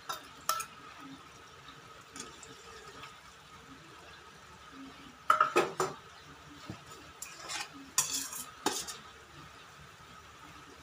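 A metal spoon clinking and scraping against a small stainless steel dish and pan in several short bursts, loudest about halfway through and again near the end, over a faint steady hiss from the stove and pan.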